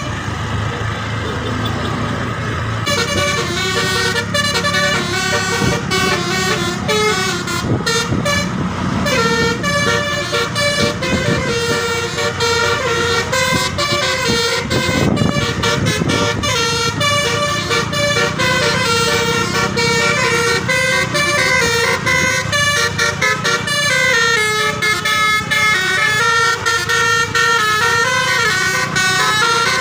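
Bus telolet horn, a multi-trumpet air horn switched by an electronic module, playing a fast melody of stepping notes over a low engine rumble.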